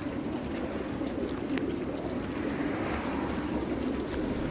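Many racing pigeons cooing together in crowded transport crates, over a steady rushing hiss from the hose filling the drinking troughs. A small click about one and a half seconds in.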